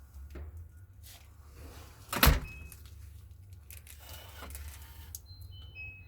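Samsung smart door lock: one loud clunk about two seconds in, a few faint clicks, and several short electronic beeps from the lock near the end, over a steady low hum.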